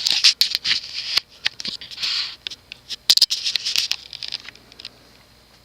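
Irregular clicks and scratchy rustling of handling noise, densest near the start and again about three seconds in, thinning out toward the end.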